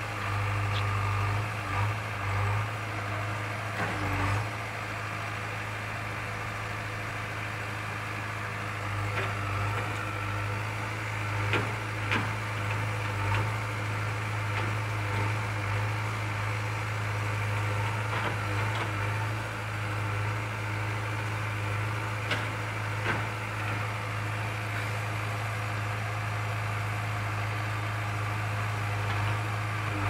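JCB 3DX backhoe loader's diesel engine running steadily under digging work, with scattered knocks and clunks as the backhoe bucket digs into stony soil.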